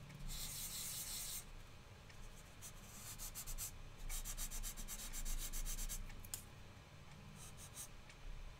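Felt whiteboard eraser rubbed back and forth across a whiteboard, wiping off a marker drawing in several bursts of quick strokes with short pauses between them.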